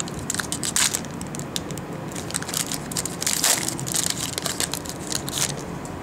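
Packaging on a sealed box of trading cards crinkling and crackling in irregular bursts as it is torn open, dying away about five seconds in.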